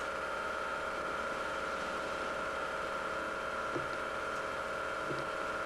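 Steady hum and hiss with a faint high whine, broken only by a couple of faint ticks.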